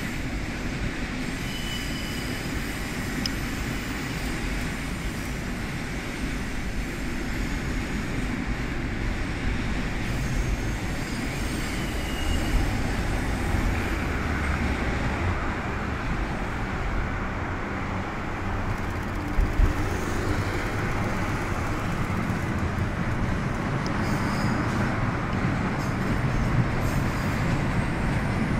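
JR DD51 diesel-hydraulic locomotive hauling passenger coaches slowly through a station, its engine rumble growing steadily louder as it approaches, over a background of road traffic.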